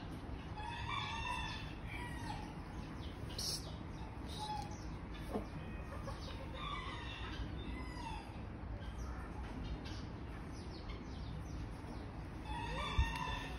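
Poultry calling off-camera in three bouts, about a second in, around seven seconds in and near the end, over frequent short chirps of small birds.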